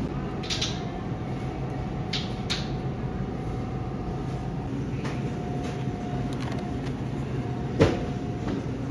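Supermarket ambience: a steady low hum of refrigerated display cases and store ventilation, with a faint steady tone through most of it. A few light clicks of plastic food packages being handled, and one sharp knock near the end as an egg carton is handled.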